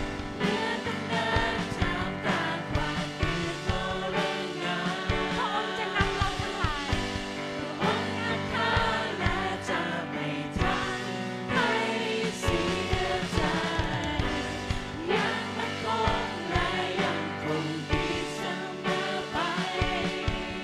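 A Thai worship song: a woman singing lead with a man singing along, over band accompaniment with a steady beat.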